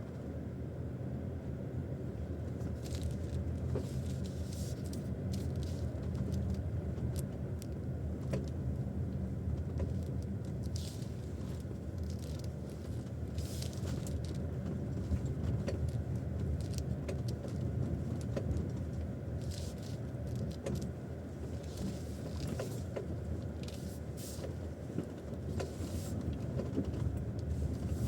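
Inside the cabin of a GAC GS8 II driving over uneven road: steady low road rumble with scattered short, sharp, ringing knocks from under the steering wheel, coming as the car's weight rocks from side to side over the bumps. The knocks are a new fault whose cause the owner does not know.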